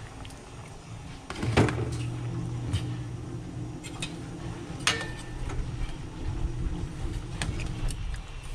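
Pot of mullet soup heating on a gas stove burner: a steady low rumble with a few sharp metal clinks. About a second and a half in, a louder knock, then a low steady hum that runs for several seconds.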